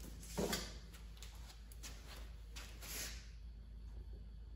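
Faint, scattered light clicks and rubbing of screws being started by hand into the mini lathe's front control panel, over a low steady hum.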